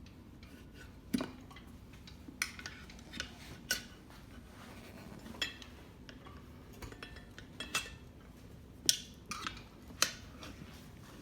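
Metal tire spoons clinking and scraping against a dirt bike wheel rim while the tire bead is levered on, in scattered sharp clicks.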